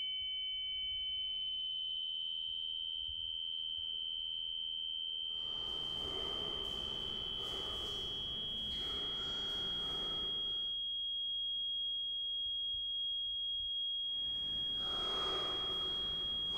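A steady, high, pure electronic sine tone held unbroken throughout. Stretches of hissing noise join it about five seconds in and again near the end.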